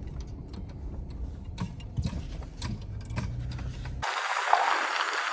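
Pickup truck's engine running low and steady, heard from inside the cab, with scattered light clicks over it. About four seconds in it cuts off abruptly to an even hiss.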